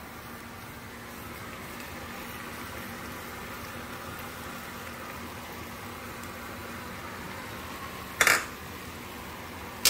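Capcay stir-fry sizzling and bubbling steadily in a pan, with a sharp metal clank of a utensil against the pan about eight seconds in.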